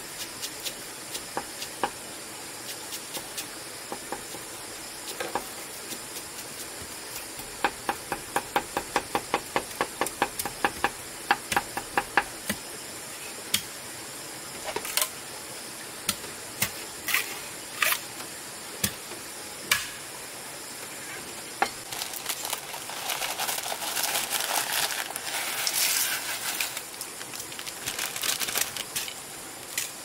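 Kitchen knife chopping green onions on a round chopping board: scattered knocks, then a quick even run of chops, about four or five a second, in the middle, then a few separate strikes. Near the end comes a longer rustling stretch.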